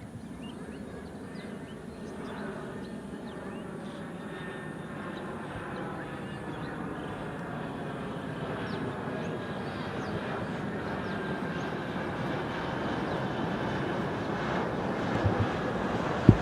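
Jet airliner approaching to land, its engine noise growing steadily louder as it nears, with a faint steady whine through it. A short sharp click comes just before the end.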